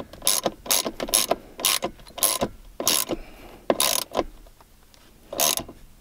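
Ratcheting wrench clicking in short strokes as it tightens a nut onto a battery-isolator terminal stud until it is snug. There is a click about every half second, slowing, then one more after a pause near the end.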